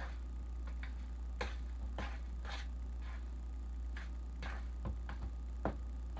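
A utensil clicking and scraping against a mixing bowl as something is stirred in it: short, irregular strokes about one or two a second, over a steady low hum.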